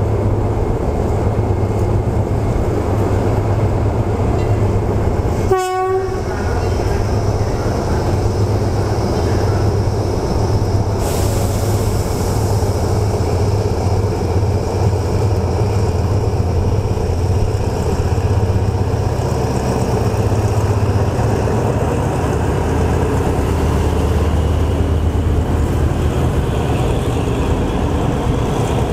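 GEA-class diesel-electric locomotive of the State Railway of Thailand running steadily as it hauls a passenger train slowly past, with one short horn toot about six seconds in.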